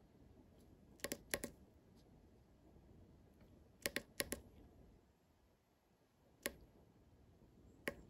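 Small tactile push button on a breadboard clicking under a fingertip: sharp clicks in quick clusters about a second in and again around four seconds, then two single clicks about a second and a half apart near the end.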